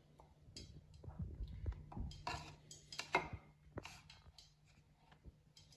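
Hand pressing and turning chicken pieces in a plastic bowl of seasoned flour to coat them for frying: soft scuffing and patting, with two louder scrapes about two and three seconds in.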